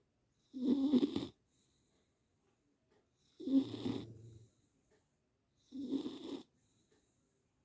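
Beagle snoring in its sleep: three snores, each about a second long, coming about every two and a half seconds.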